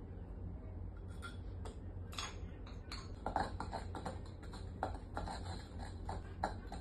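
A pestle stirring and grinding a sticky honey mixture in a white mortar: irregular clicks and scrapes of pestle on bowl, several a second, starting about a second in, over a low steady hum.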